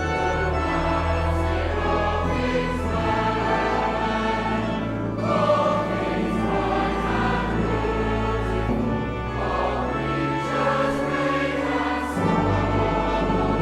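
A choir singing slow, held chords over a low instrumental bass, the harmony shifting every few seconds.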